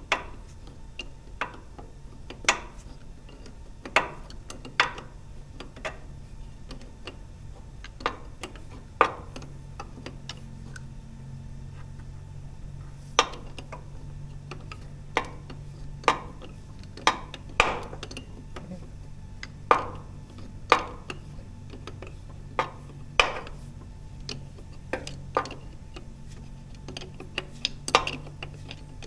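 Irregular metallic clinks and ticks of a hand wrench turning a bolt on a hydraulic power-steering pump, a sharp click every second or two and a quicker run of them near the end, over a steady low hum.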